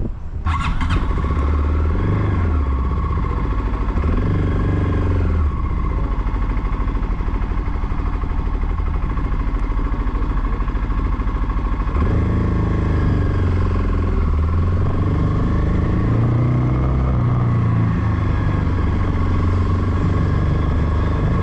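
Voge 300 Rally's single-cylinder engine running under way, coming in suddenly about half a second in, its pitch rising and falling as the rider works the throttle through the gears.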